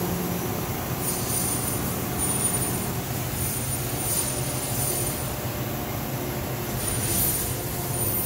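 EMAG VL-3 inverted vertical CNC lathe running, its spindle head traversing back and forth. There is a steady machine hum, and a thin high whine comes and goes several times with the moves.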